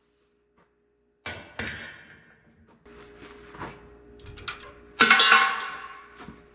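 Metal clinks and clanks from a Chevy 12-bolt rear axle as the axle shaft is shifted and a C-clip is worked loose inside the differential: two sharp ringing knocks about a second in, some rattling, then a louder ringing clank about five seconds in.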